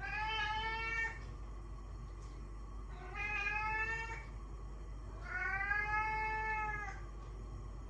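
Domestic cat meowing three times, a few seconds apart: drawn-out meows about a second long each, the last one the longest.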